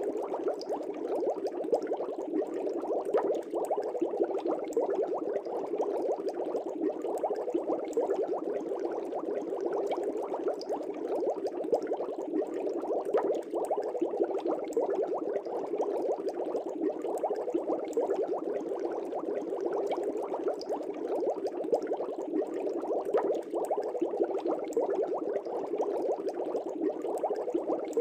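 Aquarium air bubbles bubbling steadily, a dense run of small pops and gurgles.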